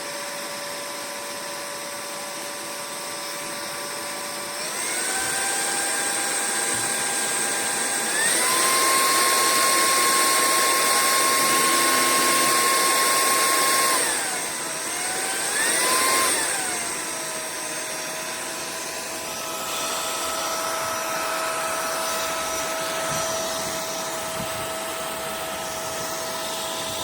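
MIUZZY cordless stick vacuum running with a high motor whine and rushing air. It changes speed: the whine steps up in pitch about five seconds in and again about eight seconds in, drops back about fourteen seconds in, rises briefly around sixteen seconds, then runs steadily at a lower pitch.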